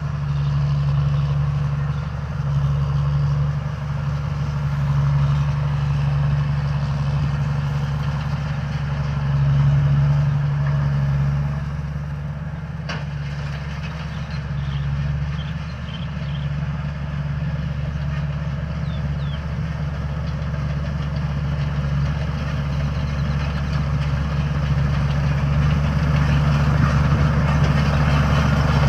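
Combine harvester's diesel engine running steadily, with a single click about halfway through.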